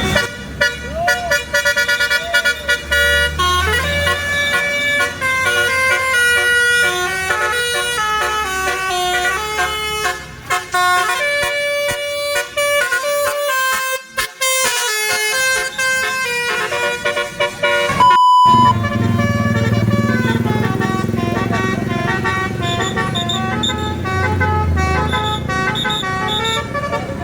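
Bus 'telolet basuri' multi-tone horn playing a melody of quick stepped notes over the bus engine running. A short, steady, pure beep sounds alone about two-thirds of the way through.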